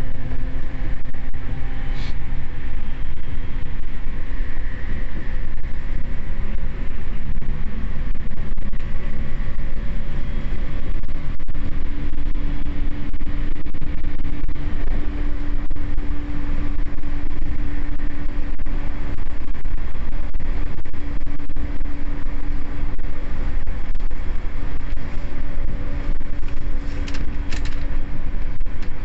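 Inside a JR East E231 series commuter train running between stations: steady rumble of the wheels on the rail with a motor whine held on one pitch, which steps slightly higher about eleven seconds in.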